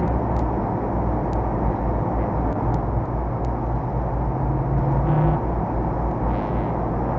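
Steady low drone of aircraft engines in flight, with scattered faint clicks of old film-soundtrack crackle.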